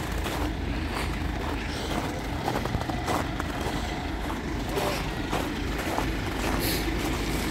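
Fire engine's diesel engine running steadily, a continuous low rumble.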